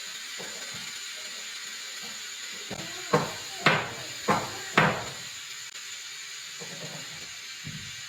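Garment steamer on its turbo setting hissing steadily. About three seconds in come four sharp knocks, about half a second apart, louder than the hiss.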